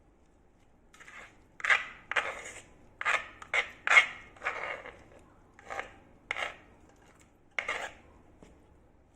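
About ten short scrapes and rubs at irregular intervals, each dying away quickly.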